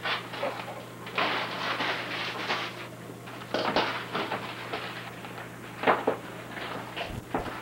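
Wrapping paper rustling and crinkling in irregular bursts as a present is wrapped, with a few sharp clicks and knocks from handling, the loudest about six seconds in.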